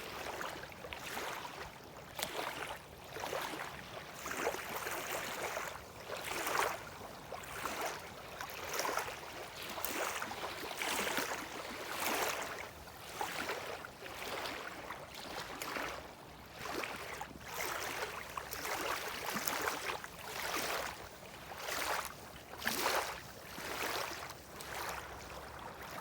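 Small sea waves lapping, each one a short splashing wash of water that comes about every one and a half to two seconds.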